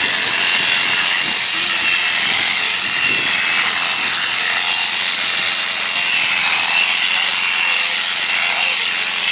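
Electric sheep-shearing handpieces running while cutting through fleece: a steady buzz with a thin high whine that wavers slightly.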